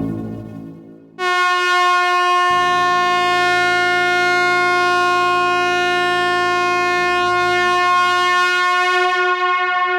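Truck air horn blasting one long, steady single-pitched note that starts abruptly about a second in and holds on, after an earlier sound fades out.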